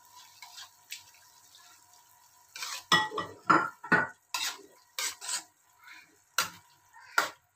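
A spatula stirring vegetables and coconut milk in a wok, knocking and scraping against the pan in a run of sharp clatters that start about two and a half seconds in.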